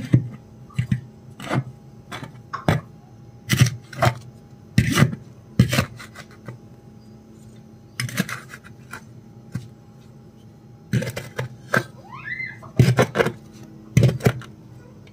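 Dried mud seal being scraped and knocked off a tandoor's metal lid with a hand-held blade, in irregular strokes with a couple of short pauses. A brief high rising call sounds about twelve seconds in.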